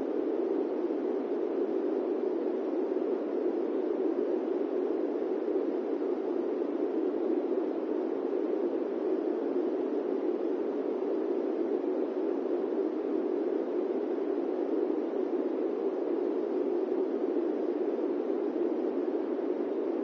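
Steady fan noise: an even, unchanging rushing hiss, dull in tone, with no rhythm or breaks.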